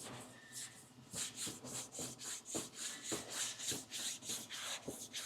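Sandpaper on a hand sanding block rubbed back and forth over the primed body of a 1965 Corvette, quick strokes about four a second starting about a second in. The block-sanding cuts through a dry guide coat to show low spots.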